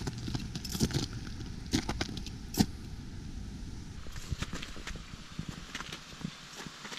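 Footsteps in boots fitted with chain-and-spike traction cleats, striking hard ice with a sharp click about once a second, then crunching on snow in quicker, lighter steps from about four seconds in.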